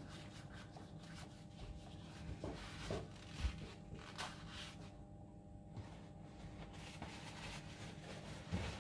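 Faint handling noises as a spin-on filter is worked by hand with a paper tissue: soft rubbing and a few light knocks and clicks, over a steady low background hum.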